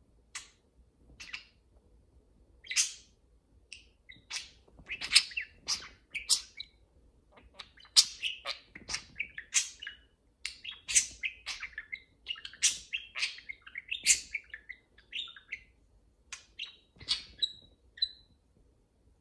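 Pet budgerigars chirping and chattering: a long run of short, sharp chirps and warbles, thickest in the middle and thinning out near the end.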